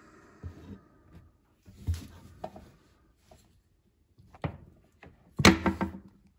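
Scattered knocks and scuffs of a phone being handled and pushed over boards in a cramped ceiling void. The loudest is a quick cluster of sharp clicks and knocks about five and a half seconds in.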